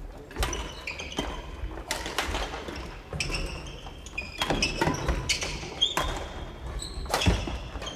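Badminton play in a large wooden-floored sports hall: sharp racquet strikes on shuttlecocks and thudding footfalls at irregular intervals, with short high sneaker squeaks on the court floor between them.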